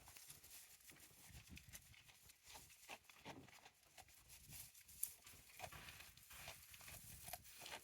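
Faint, irregular clicking and rustling from goats moving about in their pen.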